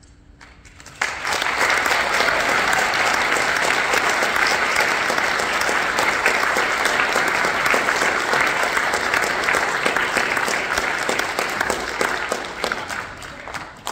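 Audience applauding, starting abruptly about a second in and dying down near the end.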